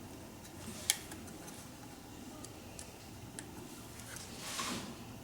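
Small ticks and clicks as a replacement 6x6 mm tactile switch is handled and pressed into its holes in the circuit board, with one sharp click about a second in. A short soft hiss comes near the end.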